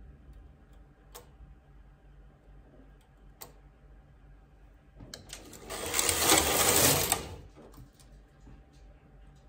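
Knitting machine carriage pushed across the metal needle bed to knit a row: one loud, noisy sweep of about two seconds, starting about five seconds in. Before it come a few sharp single clicks of a hand tool against the needles.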